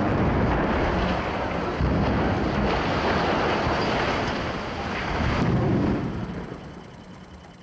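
Rumble and crash of a cement-factory silo collapsing after its explosive charges go off: a loud, noisy rumble with a couple of fresh surges, dying away over the last couple of seconds.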